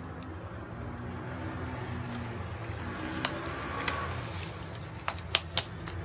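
Thin disposable glove being worked onto a hand, rustling and crinkling, with a few sharp snaps of the glove material, mostly in the last second or two. A steady low hum runs underneath.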